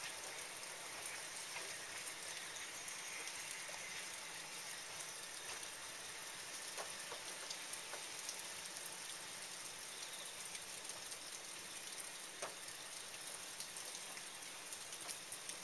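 Steady rain falling on the tracks and platform: an even hiss with scattered drop ticks.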